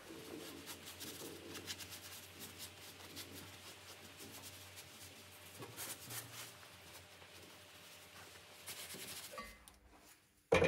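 Faint rubbing and scuffing of a gloved hand wiping oil off a truck's front axle spring seat, with a few light clicks. A single sharp metallic knock comes just before the end.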